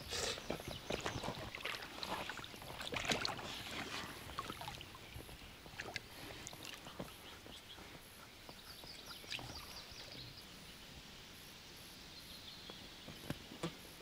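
Water splashing and knocking around an inflatable rowboat, busiest in the first few seconds, then dying down to faint lapping with a few isolated ticks.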